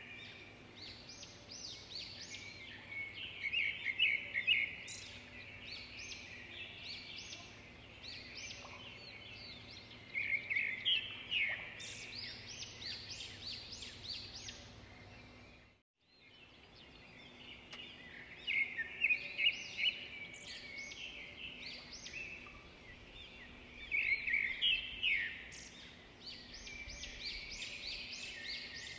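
Birdsong: a dense chorus of rapid chirps and trills, in louder bursts every few seconds. The sound cuts out for a moment about halfway through, then the chorus picks up again.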